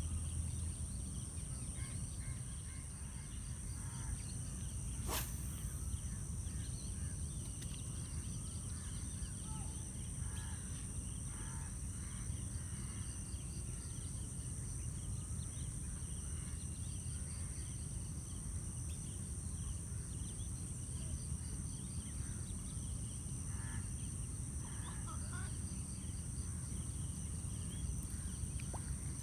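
Steady high insect drone with scattered short bird calls over a low rumble, and a single sharp click about five seconds in.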